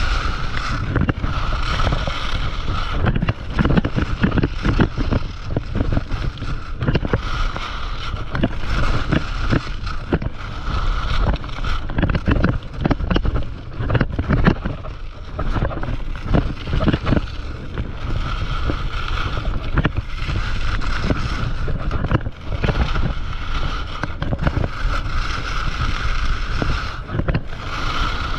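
Atomic alpine skis carving and scraping down a hard-packed groomed piste, edges hissing and chattering on the snow, the hiss swelling and fading with each turn. Wind buffets the microphone throughout.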